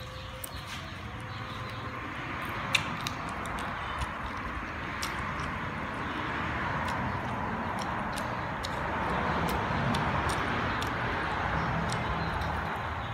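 Crisp fried chicken wing being bitten and chewed, with scattered sharp crunchy clicks and one louder crack about three seconds in. Behind it is a steady rush of background noise that swells toward the end and then eases.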